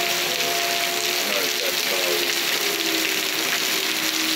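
Heavy rain falling in a steady hiss, with the long held tone of tornado warning sirens underneath, fainter after about a second and a half.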